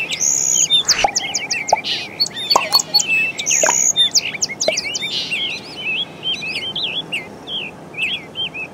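Many small birds chirping and twittering in a dense, continuous chorus over a steady background hiss, with a few sharp clicks in the first half.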